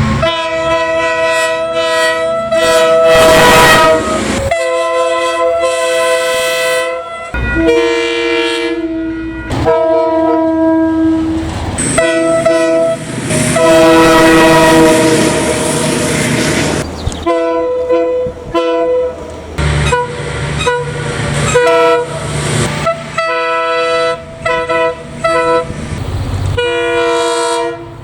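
Train air horns sounding a series of blasts, several notes together in a chord. Some blasts are held for a few seconds, and there is a run of short toots in the later part, with a low rumble underneath.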